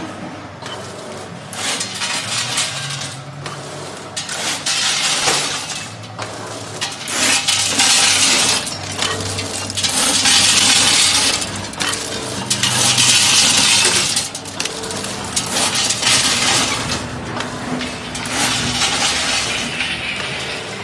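Automatic banana chips packing machine running: dry banana chips rattle and clatter in its rotating measuring-cup filler as they are swept into the cups and dropped into the bags. The crisp clattering swells in surges about every two to three seconds, over a low hum.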